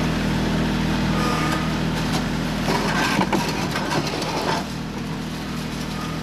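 Compact tractor engine running steadily under load as it pulls away, towing a corrugated metal culvert pipe that scrapes and rattles along the dirt trail for a couple of seconds in the middle. The engine fades a little toward the end as the tractor moves off.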